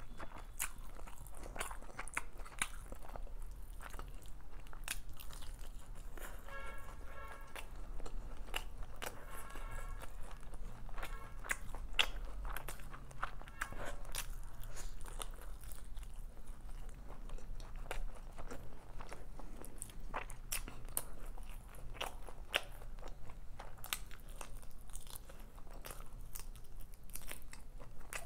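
Close-miked eating: a person chewing and biting handfuls of chicken biryani, with a steady run of small wet mouth clicks.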